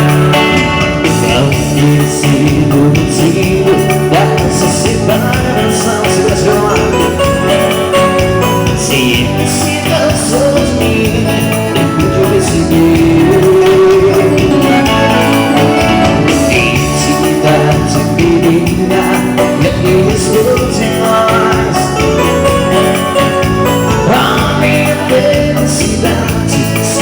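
Live dance band playing an instrumental break between sung verses of a romantic Brazilian song: a melody line over a steady bass and percussion beat.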